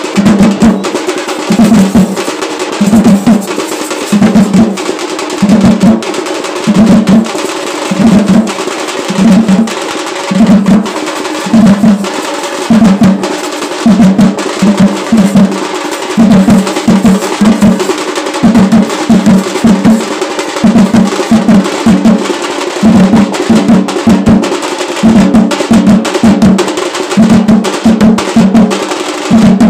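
Tamil folk drum ensemble of large frame drums and a barrel drum beaten with sticks, playing a loud, driving kavadi attam dance rhythm: heavy low strokes in regular groups, about two a second, over a continuous rattle of quicker stick strokes.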